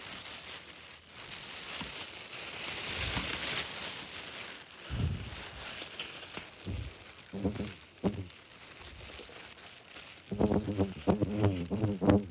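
Rustling and soft thuds of someone moving through water and thick weeds in a rice paddy, with a faint, high insect-like buzz. A few short pitched sounds come in near the end.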